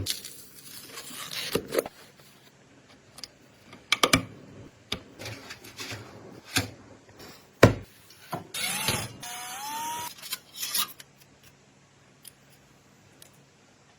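Hand-handled hardware parts clicking and knocking, with rubbing between the clicks and a short rising tone about nine seconds in.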